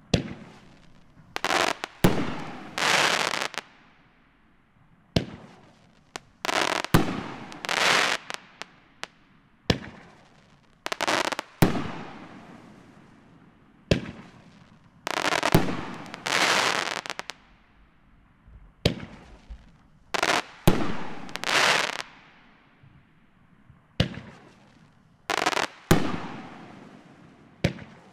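Faith Over Fear consumer firework cake firing shot after shot: each shot a sharp launch bang followed by a burst and a spell of crackling that fades over a second or two, with a new shot every few seconds and sometimes two or three in quick succession.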